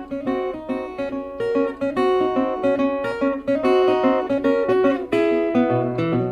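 Background music: acoustic blues guitar playing, with no vocals.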